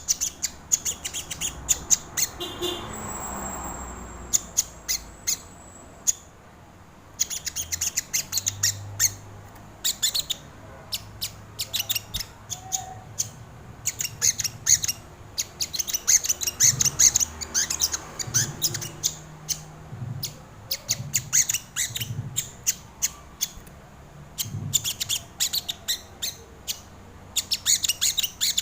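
Sogon (crimson sunbird) singing: long runs of rapid, sharp, high-pitched chips and trills, broken by short pauses, one of them about six seconds in.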